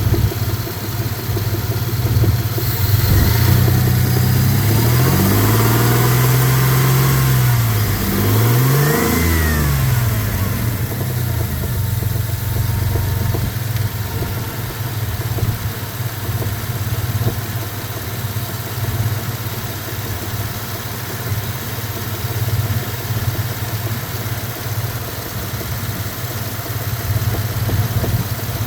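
2000 Dodge Dakota's 3.9-litre V6 engine running, revved up and back down twice a few seconds in, then settling to a steady idle. The owner is trying to pin down a knock in this engine.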